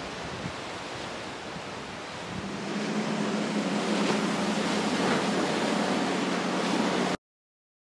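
Wind and surf rushing. About two and a half seconds in, a Yamaha outboard motor comes in, running with a steady hum over rushing water. The sound cuts off abruptly about a second before the end.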